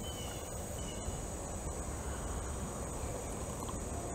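Steady high-pitched insect trill over a low steady hum, with a few faint short falling chirps.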